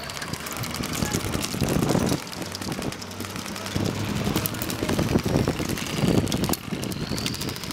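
A motor vehicle's engine running steadily, with louder surges and scattered sharp clicks over it.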